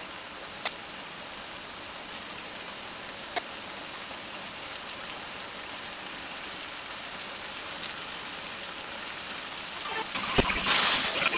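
Sliced onions sizzling in a frying pan: a steady, even hiss with a couple of faint pops. About ten seconds in comes a knock, then louder scraping and hissing as the onions are stirred again.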